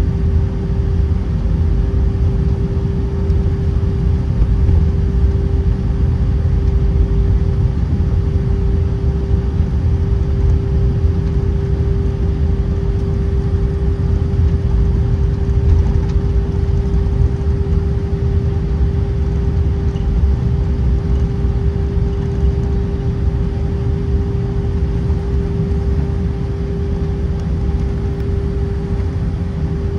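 Airbus A319 airliner with its jet engines running steadily at low power, a constant hum over a low rumble with no build-up to takeoff thrust.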